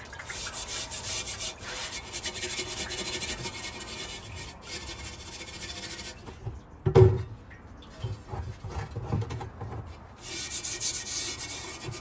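Metal scrubbing pad scouring a wet cast iron griddle in quick, scratchy strokes, stripping the old seasoning and rust loosened by a lye soak. The scrubbing stops for a few seconds after a single loud knock about seven seconds in, then starts again near the end.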